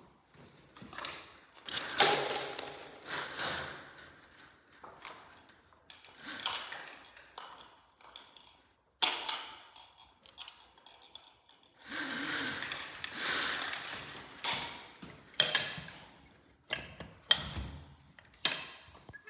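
Vinyl vertical blinds scraping and clattering as they are pushed aside, then the metal latch of an old aluminium sliding glass door being worked, with sharp clicks and rattles near the end. The door does not open.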